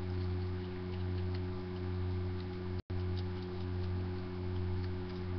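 Steady low electrical hum with a stack of higher steady overtones, cut off completely for a split second about three seconds in. Faint light ticks sound over it.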